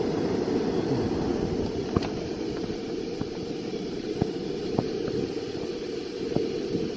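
Waterfall rushing steadily, with a few faint clicks scattered through.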